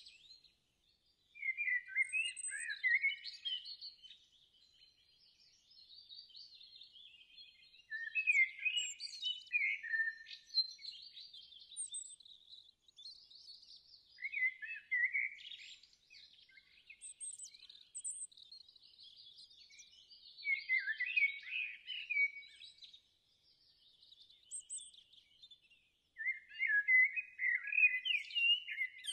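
Birds singing: bursts of warbling song every few seconds, with softer chirping in between.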